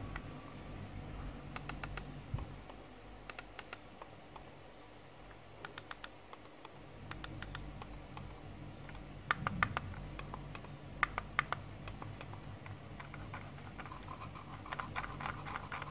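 Computer mouse buttons pressed in turn on a Logitech M220 Silent and an ordinary Bluetooth mouse. Sharp clicks come in small groups of two to four, every second or two.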